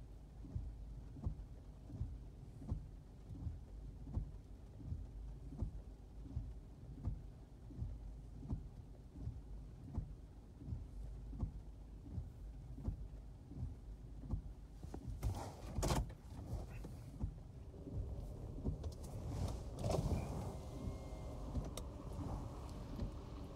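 Inside a car cabin: a low rumble with a soft thump repeating about every 0.7 s, then a few sharp knocks about two-thirds through, followed by a whirring motor sound near the end.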